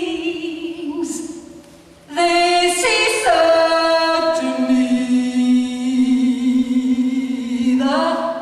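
A woman's voice singing a cappella in long, wordless held notes. A first note fades away; then, about two seconds in, louder notes step down into a long, steady low note, and a new note swells up near the end.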